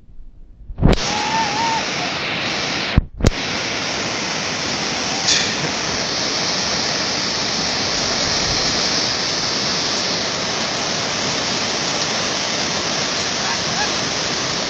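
Flash-flood water rushing through a wadi: a steady, even rush that cuts in about a second in, with a brief break around three seconds.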